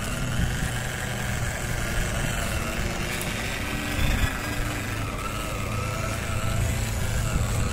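MN86KS RC crawler's small electric motor and drivetrain running as it crawls over grass and leaves: a steady low drone with a faint whine that rises and falls in pitch.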